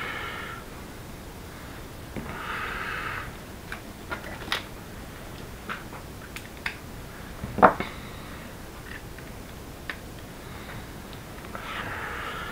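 Light clicks and knocks of small tools being handled and set down on a hobby desk, with one sharper knock about halfway through, and a few short breaths through the nose.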